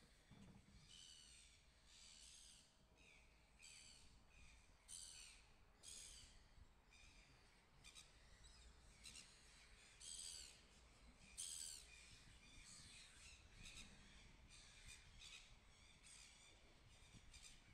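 Gulls calling, a faint, steady series of short harsh calls, one or two a second.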